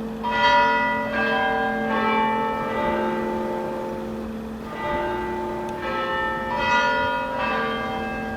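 Birkenhead Town Hall bells chiming: four notes at different pitches, a pause of about two seconds, then four more. Each note rings on and overlaps the next.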